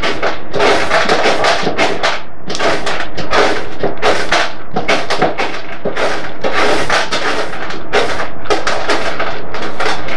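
A kitten suckling vigorously on a nursing bottle's rubber nipple, close to the microphone: a loud, uneven run of wet sucking and slurping sounds, about two a second.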